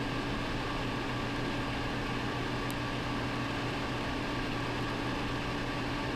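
Steady background machine hum with a constant low drone and hiss, unchanging throughout; one faint tick about three seconds in.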